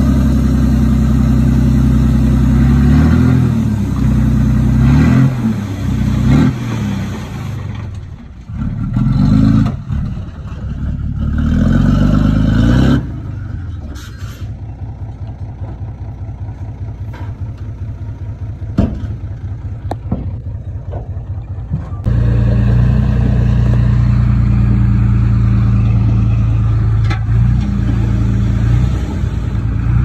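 Heavy earthmoving machine's engine working under load, its pitch rising and falling with the throttle, dropping back to a lower, pulsing idle about halfway through and then running loud and steady again, with a few sharp clanks.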